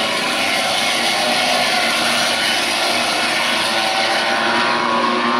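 A pack of MotoGP racing motorcycles' 1000 cc four-stroke engines running at high revs, many engine notes overlapping as the bikes pass through a corner at racing speed.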